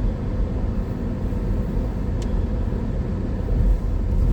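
Road and engine noise inside a moving car's cabin: a steady low rumble with a faint hum, and a light click about two seconds in.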